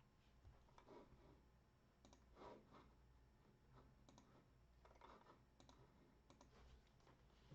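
Faint, irregular clicks and soft handling noises over near silence.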